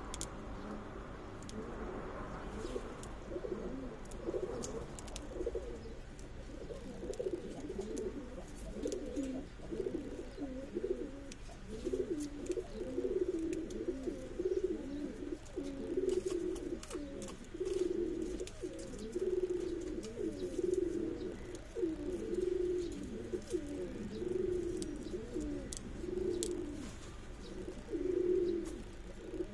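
Domestic pigeons cooing, a long run of low repeated coos that grows louder and more continuous from about ten seconds in.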